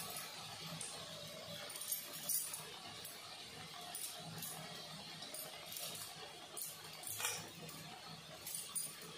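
Coconut-batter fritters (nadia bara) deep-frying in hot oil in a wok: a steady faint sizzle with scattered sharp crackles and pops.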